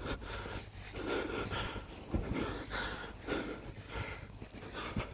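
A person breathing hard, short noisy breaths coming in a steady rhythm, about one every half second to second.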